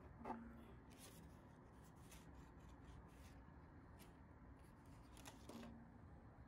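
Near silence with faint handling noises: a light click about a third of a second in and another around five and a half seconds in, each with a brief low ring, and soft scratchy rustling between as a hand touches a floor lamp's fabric shade, metal fitting and paper hang tags.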